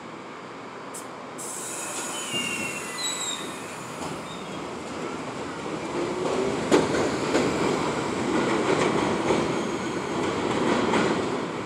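R68 subway train pulling out of an elevated station, its running noise building as it gathers speed. Brief high wheel squeals come about two to three seconds in, then a sharp clack and repeated clicks of the wheels passing over rail joints.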